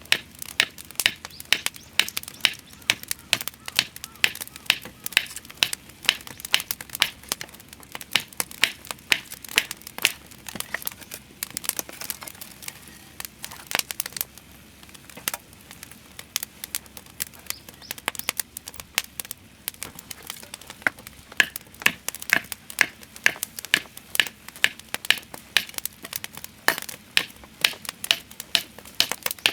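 Wood fire crackling: a dense run of sharp, irregular pops that thins out for a few seconds in the middle.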